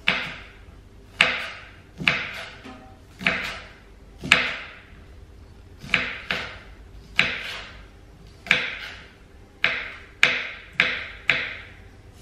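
Small kitchen knife slicing bok choy stems on a wooden chopping board: a sharp knock of the blade on the board with each cut, about a dozen irregular strokes, roughly one a second.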